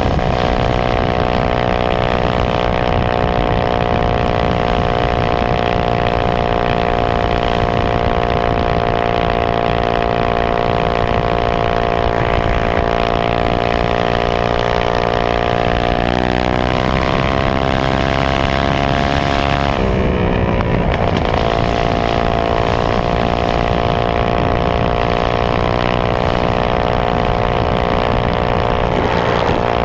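Minibike's Honda GX160 single-cylinder four-stroke engine running hard at high revs under the rider, a steady engine note. The revs climb about halfway through, drop briefly a few seconds later, then pick back up and hold steady.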